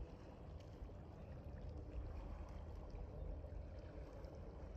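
Faint lapping of choppy lake water at the shore, with a low steady rumble underneath.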